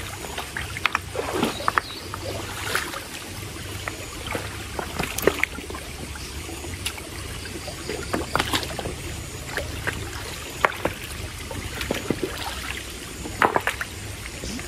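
Water splashing and sloshing in a shallow forest stream: scattered short splashes and knocks over a steady low rush of water.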